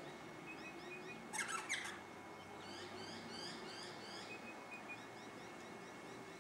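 Wild birds calling: one short, loud call about a second and a half in, then a quick run of short rising chirps, with a few fainter calls around them.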